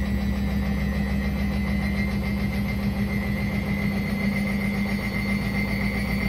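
Indesit WSB5085 washing machine drum spinning: a steady hum with a thin high motor whine that rises slightly in pitch.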